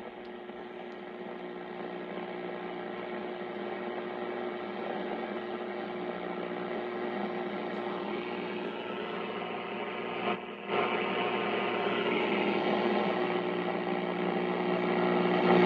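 The 1939 Philco 40-120 tube radio's speaker giving off steady static and mains hum with no station coming through. The sound drops out briefly about ten seconds in, then comes back slightly louder.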